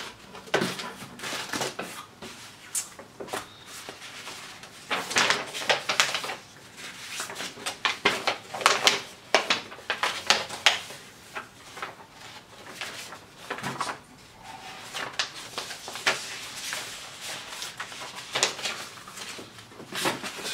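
Paper sheets of a printed instruction booklet rustling as they are unfolded, leafed through and laid down by hand, with rapid rustling and crackling in the middle stretch and scattered lighter handling noises around it.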